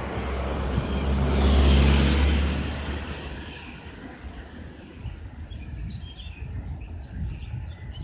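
A motor vehicle drives past, loudest about two seconds in and fading away by about four seconds. Small birds then chirp in short high notes.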